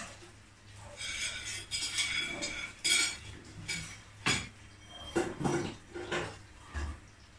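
Cutlery clinking and scraping against ceramic plates for about two seconds, then several separate sharp knocks of dishes being moved and set down on a wooden table.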